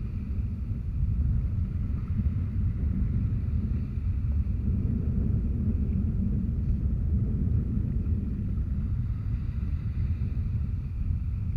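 Steady low rumble of wind buffeting an action camera's microphone, over small sea waves washing in the shallows.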